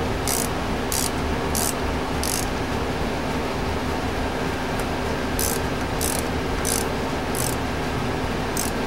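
Ratchet wrench tightening a bolt in strokes: a short, high rasp of clicks on each swing, about every two-thirds of a second. There are four strokes, a pause of about three seconds, then five more, over a steady background hum.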